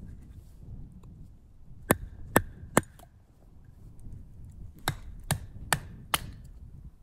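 Wood being chopped with a blade: three quick sharp strikes, a pause of about two seconds, then four more at the same pace.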